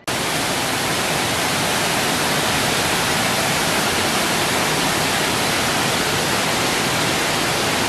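Waterfall rushing steadily as water cascades down over rock.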